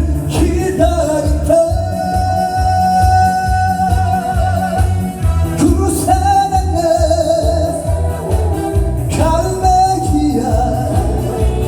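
Korean trot song over a steady, pulsing backing beat, with a melody line holding long notes with vibrato.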